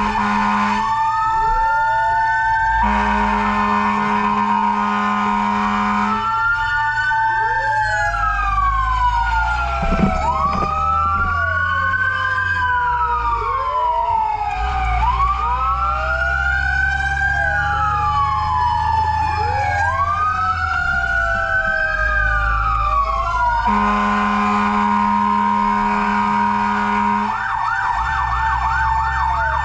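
Fire truck sirens from several emergency vehicles wailing at once, their rising and falling tones overlapping. Long steady horn blasts sound near the start and again toward the end, a fast yelp comes in near the end, and engine rumble runs underneath.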